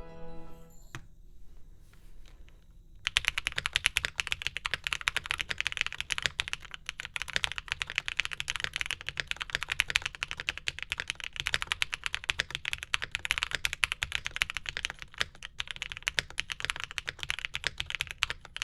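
Fast, continuous typing on a Mode Sonnet mechanical keyboard with lubed KTT Rose linear switches, GMK keycaps and a POM plate, a dense run of keystroke clicks starting about three seconds in.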